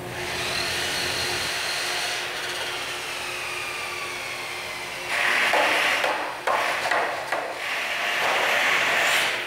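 A power tool working into wood. A faint whine slides slowly downward over the first few seconds, then come two loud stretches of grinding, about five seconds in and again from about six and a half seconds to near the end.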